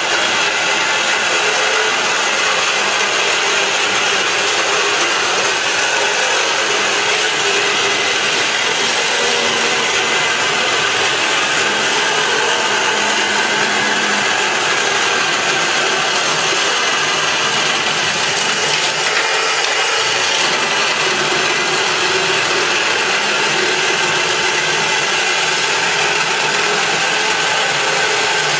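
Macroza handheld electric wall chaser milling a curved channel into perforated clay-block masonry, running steadily under load without a break.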